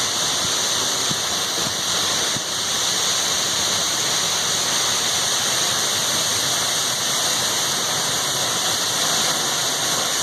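Tunnel Falls, a large waterfall, pouring close by: a steady, unbroken rush of falling water, strongest in the upper range.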